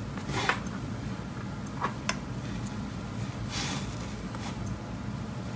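Faint rubbing and a few light taps from a fingertip dipping into an eyeshadow pan and swatching powder onto the forearm, over a steady low hum.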